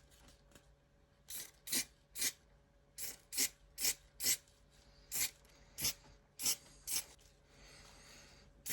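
Aerosol can of primer being sprayed on a sanded repair in short bursts, about two a second, with one longer, softer spray near the end.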